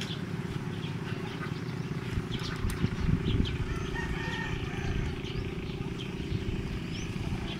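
A rooster crowing faintly in the distance over a steady low rumble.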